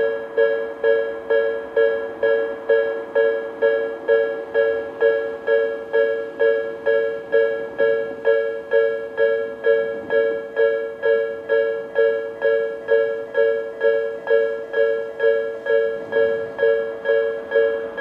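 Japanese railway level-crossing alarm ringing its electronic Tobu 'sound B' tone: an even, repeated ding, about two strikes a second, each dying away quickly. It signals that the crossing is closed for an approaching train.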